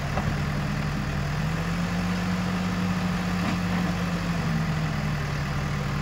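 Diesel engine of an Escorts Digmax backhoe loader running steadily while its backhoe arm works, the pitch lifting slightly about a second and a half in and settling back near the end.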